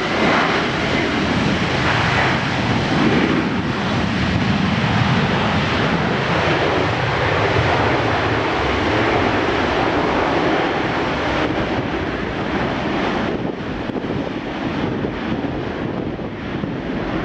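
Jet airliner's engines running loud at high power: a steady rushing noise, with a low tone that slowly falls in pitch over the first several seconds.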